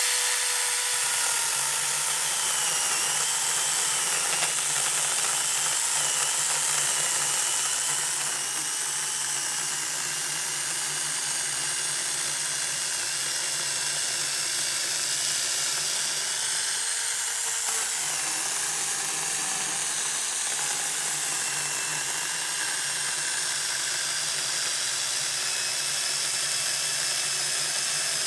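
Veitorld mini battery chainsaw cutting into a thick cedar log, its electric motor and chain giving a steady high-pitched whine. The pitch holds under load, which the owner sums up as cutting like nothing, and the level eases slightly about eight seconds in.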